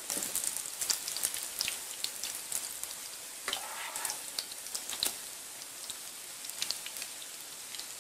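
Potato fritters sizzling in hot oil in a frying pan, a steady hiss with many small crackling pops. About halfway through a spatula slides under a fritter in the pan to turn it over.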